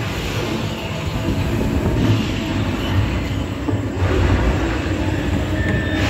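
Steady low rumble inside an indoor dark ride, the Bear-y Tales shooting ride's cars running along their track.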